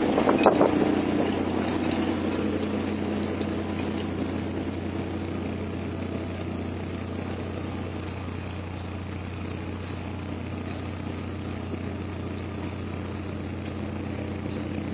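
Engine of a squid-fishing boat running steadily, a low even hum. A louder rushing noise at the start fades within about two seconds.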